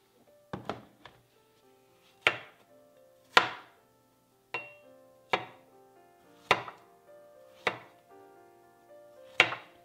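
Chef's knife cutting fresh strawberries on a small wooden cutting board: sharp knocks of the blade on the wood, about one a second, some in quick pairs.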